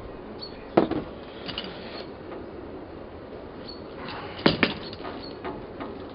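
Metal parts of a quarter-light window frame knocking and clicking as they are handled and put together by hand: a sharp knock about a second in, a double knock about three and a half seconds later, and light clicks in between.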